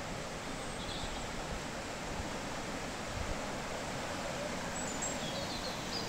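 Steady rushing of a fast mountain stream running high and strong with winter flow. A couple of faint high chirps come about a second in and again near the end.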